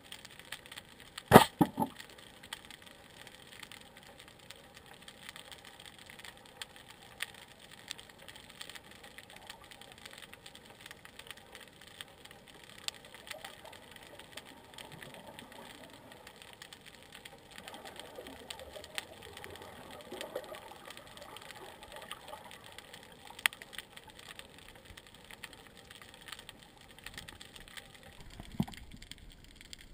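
Gladiator 110 speargun shot heard underwater: a single sharp crack about a second in as the shaft is fired and strikes the target, followed by a couple of smaller knocks. Faint underwater crackle with scattered small ticks fills the rest.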